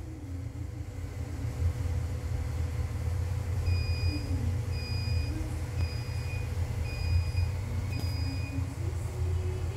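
Steady low rumble with an electronic beeper sounding five times, evenly about once a second, through the middle.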